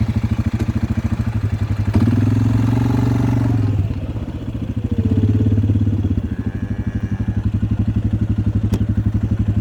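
Small farm vehicle engine running close by, with a steady beat. It is revved up briefly about two seconds in and again around five seconds.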